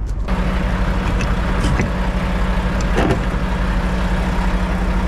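Mack Anthem semi-truck's diesel engine idling: a steady low rumble with a constant hum, which grows louder a moment in.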